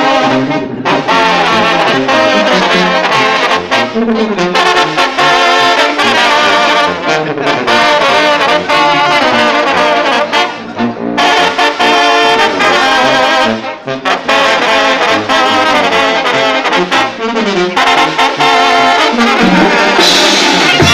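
Live Mexican banda de viento: a line of trumpets and trombones playing a melody together in phrases, with brief breaks between them. About a second before the end, drums and clarinets come in with the full band.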